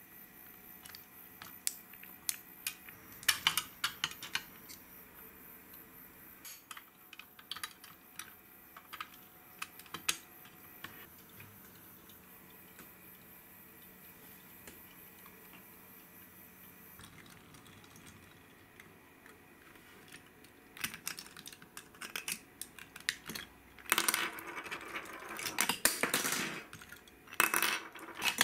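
Clicks, taps and rattles of small die-cast and plastic toy vehicles being handled and moved about on a wooden tabletop. The clattering gets denser and louder in the last few seconds.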